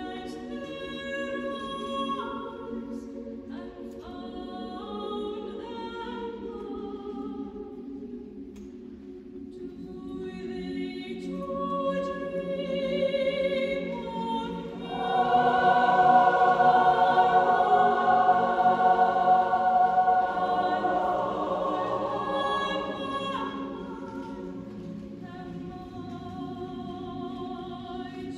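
Large mixed choir singing sustained chords beneath a soprano soloist's line, swelling to a loud climax about halfway through and easing off again toward the end.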